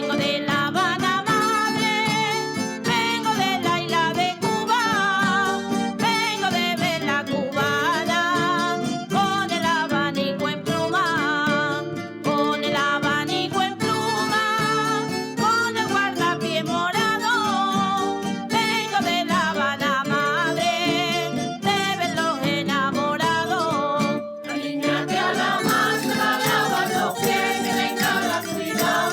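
A solo voice, pitched like a woman's, singing a traditional Extremaduran folk song with vibrato over strummed acoustic guitars.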